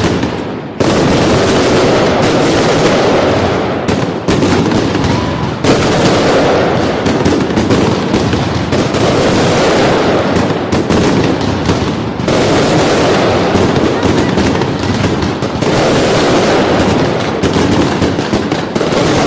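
Fireworks display firing without pause: dense, rapid, overlapping bangs and crackles, with a brief drop in the barrage just after the start.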